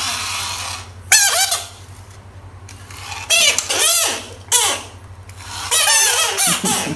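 Frog screaming: several high, wavering squealing cries, about a second in, again from about three to four and a half seconds, and near the end, over a low steady hum. The open-mouthed scream is the frog's distress call during a scuffle with another frog.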